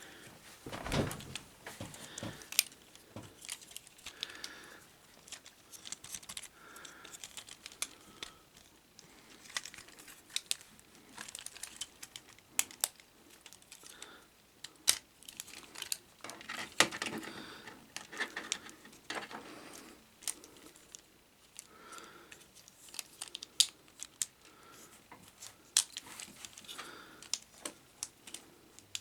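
Plastic parts of a Transformers action figure being handled and shifted during its transformation: scattered sharp clicks and snaps with soft scraping and rubbing between them.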